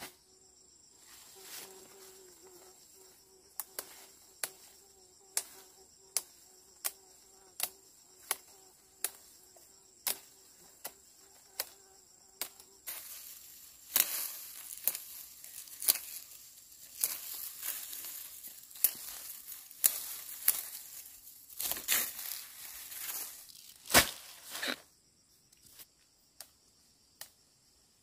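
Insects calling: a steady high-pitched buzz with a regular click a little faster than once a second. Through the middle of the stretch it is joined by louder crackling and rustling, with a sharp knock near the end.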